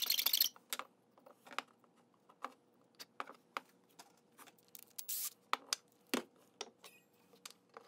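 A flat hand file rasping across a small turned wooden rook near the start, then scattered light clicks and knocks as the piece and tools are handled on a workbench, with another short scraping rasp about five seconds in.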